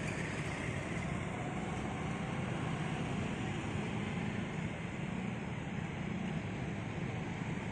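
Steady street traffic noise: motor vehicles running on the road, a continuous low rumble with no single event standing out.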